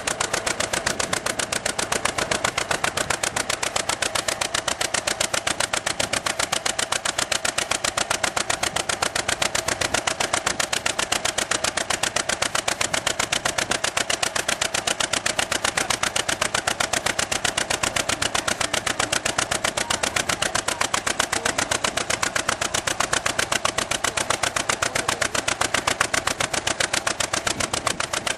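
1949 John Deere BW's two-cylinder engine running under way, a steady, even putt-putt exhaust beat.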